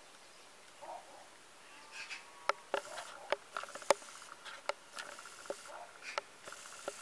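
A domestic cat chewing a freshly caught mouse, the bones cracking in sharp, irregular crunches that start about two seconds in, with softer wet chewing between them. A faint steady buzz runs underneath through the second half.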